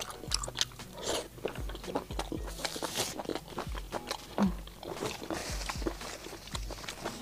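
A person chewing and biting a small octopus: repeated wet mouth clicks with soft low jaw thumps about twice a second.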